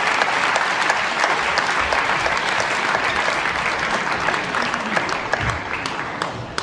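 Audience applauding between points in a table tennis match, a dense patter of clapping that fades away near the end.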